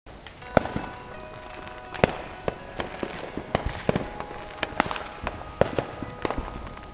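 Consumer fireworks going off: a rapid, irregular string of sharp bangs and pops, the loudest about half a second and two seconds in, over a steady background of fainter crackling.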